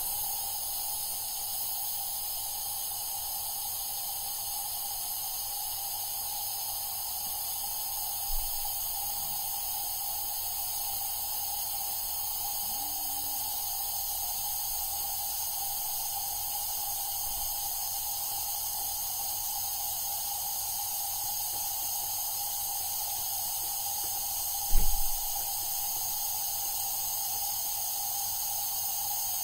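Steady rushing hiss of compressed air flowing through a differential-pressure control test rig, with a soft thump about eight seconds in and a louder thump near the end.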